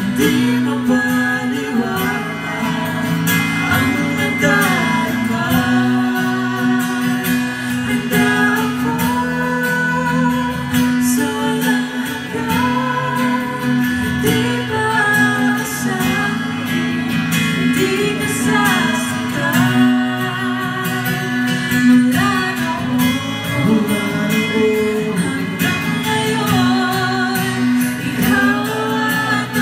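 Live music: acoustic guitar playing under a voice singing long, gliding held notes.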